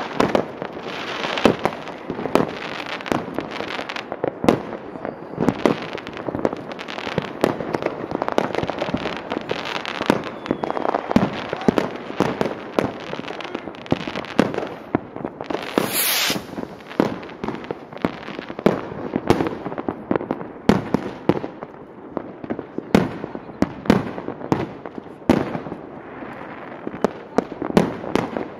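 A dense, irregular string of sharp bangs and crackles, several a second, with no let-up. About sixteen seconds in there is a brief high-pitched hissing burst.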